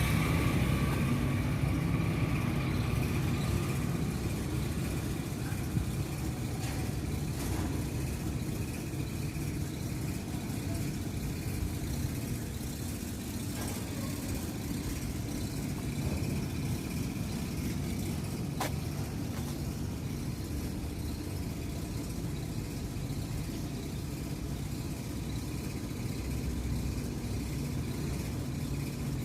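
A motor vehicle's engine idling steadily, with a few faint clicks now and then.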